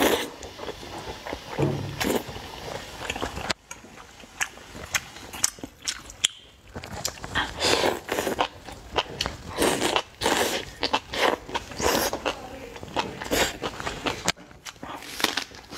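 Noodles being slurped from a chili soup and chewed: a string of wet slurps and smacking chewing sounds, close to the microphone, with a brief quieter gap about three and a half seconds in.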